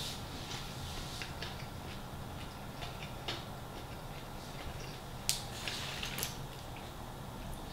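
Small soft clicks of chewing with the mouth closed, then a plastic iced-drink cup with a straw picked up off the table, giving a few sharper plastic clicks and a brief rustle about five to six seconds in.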